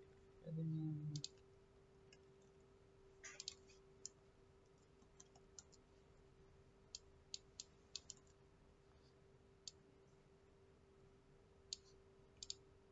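Computer keyboard and mouse clicks: sparse, faint single clicks and short runs of key presses scattered through, with a faint steady tone underneath and a brief low hum just after the start.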